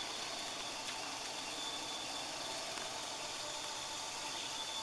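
Steady outdoor bush ambience: an even hiss with a thin, high-pitched, unchanging insect drone.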